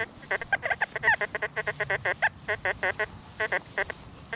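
XP Deus 2 metal detector sounding a quick run of short pitched beeps, several a second, as the coil sweeps over ground littered with foil, which sets off iron tones. The beeps pause briefly about three seconds in.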